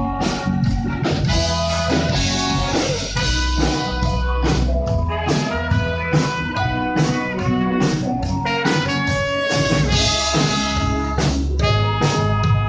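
Live band playing an instrumental passage at a sound check: drum kit keeping a steady beat under bass, guitar and sustained chords, with no singing.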